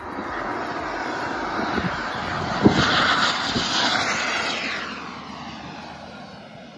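Radio-controlled model jet taking off and flying past: its jet engine noise builds to a peak as it goes by, then fades with a falling pitch as it climbs away. A brief knock comes a little before the loudest point.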